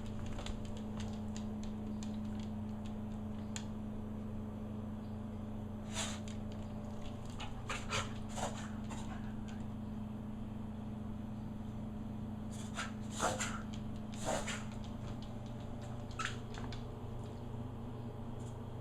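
A dog with kennel cough making several short, sharp sounds, scattered through, over a steady low hum.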